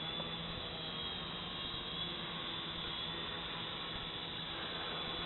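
Small multirotor drone on a HoverThings HT-450 frame hovering in place, its electric motors and propellers giving a steady hum and whir as it holds position in loiter mode.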